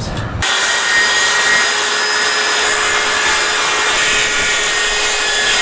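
Circular saw cutting quarter-inch plywood into strips: a steady motor whine over the noise of the blade going through the wood. It starts abruptly about half a second in.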